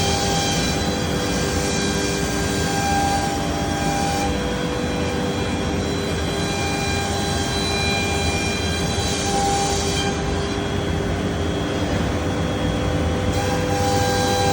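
Biesse Rover K CNC router milling solid wood: a steady machine drone with several held tones that start and stop as it works, and a few stretches of brighter, hissing cutting noise.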